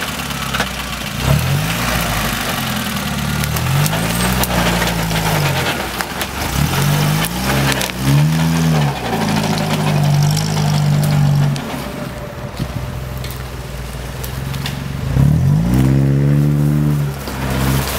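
UAZ-469 off-road vehicle's engine running under load while crawling over rough ground, revved up and down in repeated bursts about five times, the strongest rev near the end.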